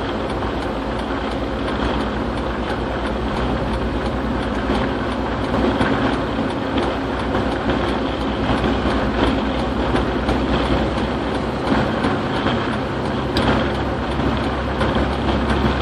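Steady road noise inside a vehicle cruising at highway speed, a constant low rumble with no let-up.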